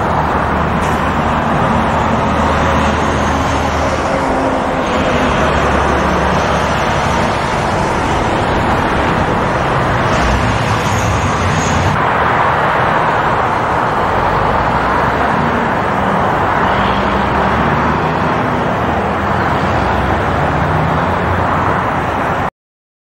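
Steady roar of a twin-turboprop airliner's engines on the runway, with a low drone underneath. It cuts off suddenly near the end.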